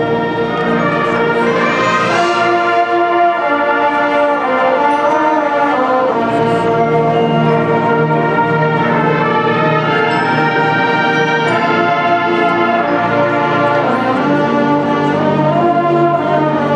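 A college marching band playing a slow passage, its brass holding sustained chords that change every second or two.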